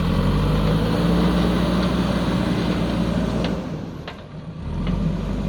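JCB backhoe loader's diesel engine running at a steady, loud working note, dropping away briefly about four seconds in and then picking up again.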